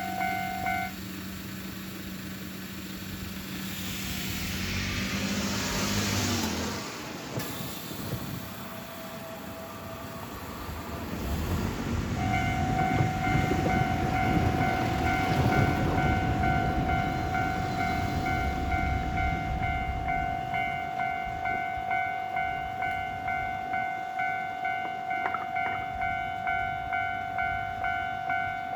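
Japanese level-crossing warning bell ringing, stopping just under a second in and starting again about twelve seconds in, then ringing steadily, about one and a half strikes a second. In between there is a diesel railcar's steady engine hum that slides in pitch around six seconds, followed by a loud rumble of the train running past.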